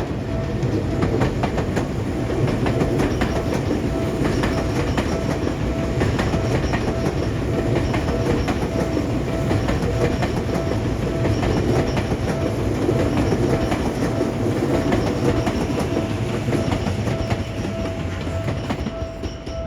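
Electric commuter train running through a railway crossing, its wheels clattering over the rail joints, while the crossing bell keeps ringing a steady repeating tone. The train noise fades near the end.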